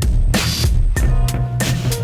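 Music with a steady beat: drum hits over a deep, sustained bass line.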